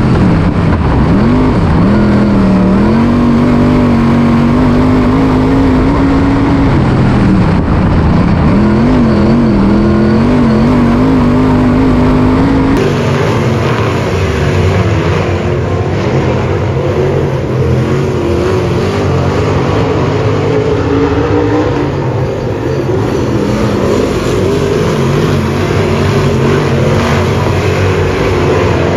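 Dirt late model race car's V8 engine heard from inside the car on track, its pitch dropping and climbing again several times as the throttle is lifted and reapplied. About 13 s in this gives way to several late models racing together, heard from the grandstand.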